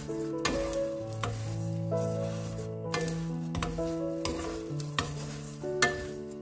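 Wooden spatulas stirring and tossing small dried anchovies and pumpkin seeds as they roast in a nonstick frying pan, making a dry rustling scrape, with a sharp knock near the end. Soft background music with held, piano-like notes plays under it.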